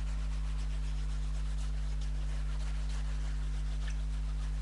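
Pen colouring in on a paper plate: faint, irregular scratchy strokes, over a steady low electrical hum.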